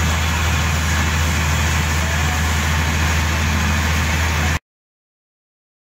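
A boat engine running steadily, a constant low hum under a steady hiss; the sound cuts off suddenly about four and a half seconds in.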